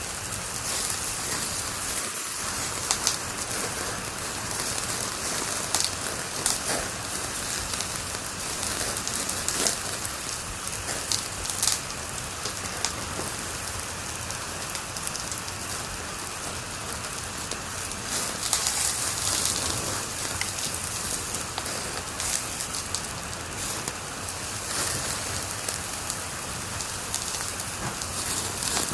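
Wood fire crackling in a fireplace: a steady hiss with frequent sharp pops and snaps.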